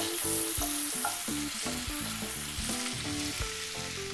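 Butter and a little oil sizzling on high flame in a kadai with cumin seeds, garlic and ginger, while a wooden spatula stirs through it.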